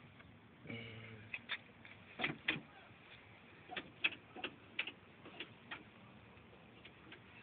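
Irregular light clicks and taps, about a dozen spread unevenly, from hands and tools working at a car's rear door latch.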